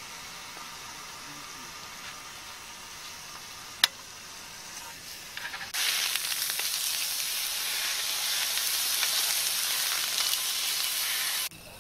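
Slices of pork neck sizzling on a grill plate over a portable gas stove. It is faint at first, with one sharp click about four seconds in. From about six seconds in the sizzling is loud, and it cuts off suddenly near the end.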